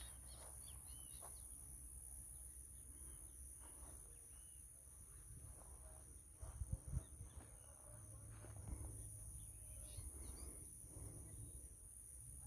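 Faint natural outdoor ambience: a steady high insect drone with a few scattered bird chirps near the start. A few soft low knocks come about six and a half to seven seconds in.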